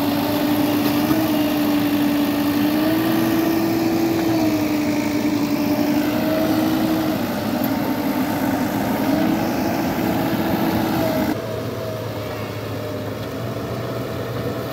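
JCB backhoe loader's diesel engine running under load as the machine works through mud, a steady drone that dips and rises in pitch a few times. About eleven seconds in it becomes quieter, heard from further off.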